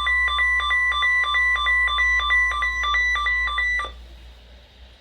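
A weather radio receiver's alert alarm sounding, set off by a required weekly test: a loud electronic two-tone beeping that alternates rapidly between a lower and a higher pitch. It cuts off suddenly about four seconds in, leaving a faint low hum.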